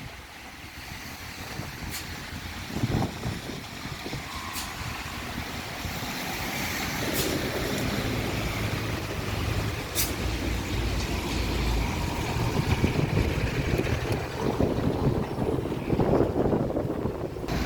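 Outdoor city street noise: road traffic that grows steadily louder, likely a heavy vehicle approaching, with a few short clicks.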